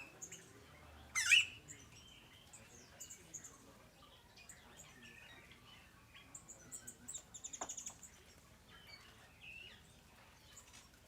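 Several small aviary birds chirping and calling, with one loud sharp call sweeping downward about a second in and a quick rattling trill around seven seconds.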